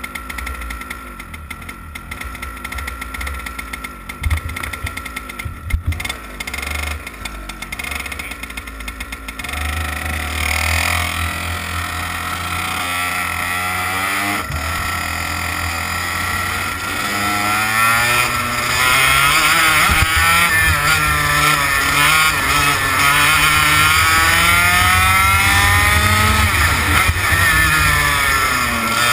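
TKM BT82 Extreme 100cc two-stroke kart engine. It is quieter for the first nine seconds or so, then runs with its revs repeatedly rising and falling, getting louder from about eighteen seconds in.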